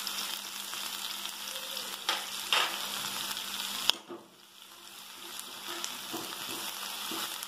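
Chopped onion and green chillies sizzling in hot oil in an aluminium kadai, with cumin seeds just added. A few short knocks come about two to four seconds in, and the sizzle dips briefly and then returns.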